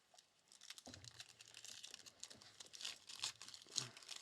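Plastic trading-card pack wrapper crinkling and tearing open, a quick, faint crackle with a couple of soft knocks.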